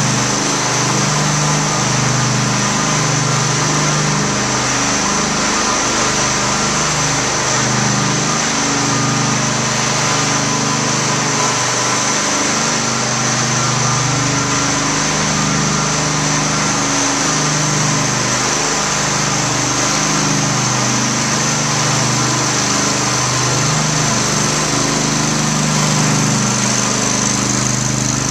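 Propane-powered floor burnisher's small gasoline-style engine running steadily while it buffs the floor, with a steady high whine above the engine note. The engine's pitch wavers slightly.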